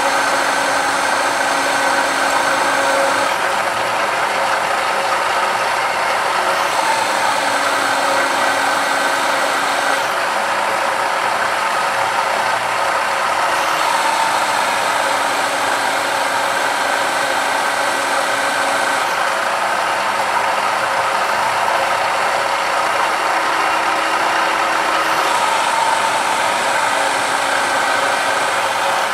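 Annular cutter plunging through 1-inch-thick steel flat bar on a vertical milling machine: steady machine and cutting noise with a rattling, grinding edge, its tone shifting every few seconds.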